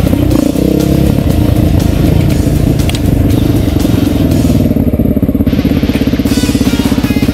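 Off-road dirt bike engine running on a trail, its pitch rising and falling with the throttle, then settling into a fast, even pulsing at low revs near the end.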